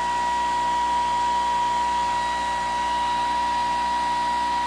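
Homemade pulse motor running at speed: a steady high-pitched whine over an even whirring hiss.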